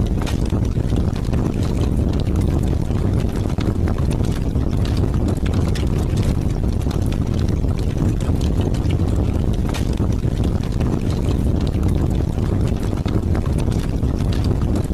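Heavy rain with wind: a steady wash of noise, deepest at the bottom, with scattered sharper ticks of drops.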